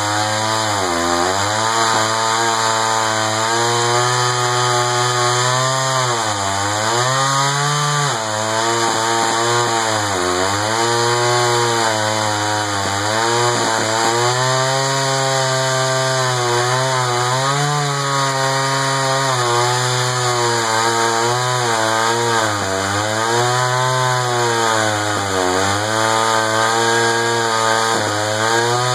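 Echo CS-500VL two-stroke chainsaw with a 20-inch bar running at full throttle while cutting through a large slab of red oak. The engine pitch sags every few seconds as the chain bites deeper under load, then climbs back.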